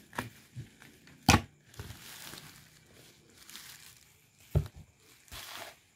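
A boxed item wrapped in bubble wrap being handled and unwrapped: crinkling, rustling plastic with a few sharp knocks, the loudest about a second in.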